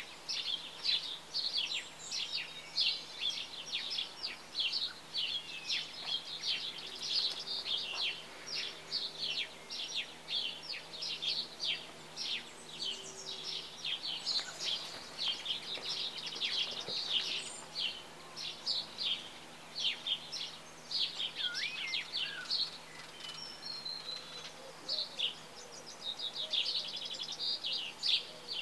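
Small birds chirping rapidly and continuously, many short high chirps overlapping, with a faint steady low hum underneath.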